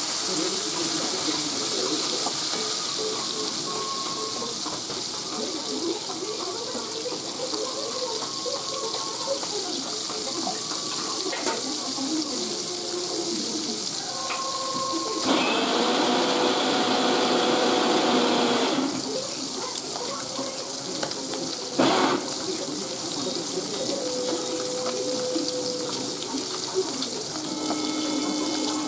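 Pieces of fish sizzling as they fry in hot oil in a metal kadai, a steady hiss throughout. A louder rush of noise lasts a few seconds a little past the middle, and a single sharp knock follows soon after.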